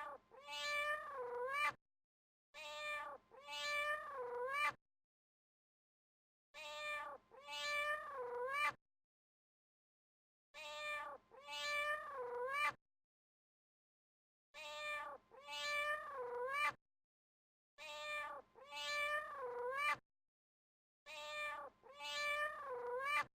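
Domestic cat meowing: the same pair of meows, a short one followed by a longer one that dips in pitch near its end, repeats about seven times with silent gaps of a second or two between pairs.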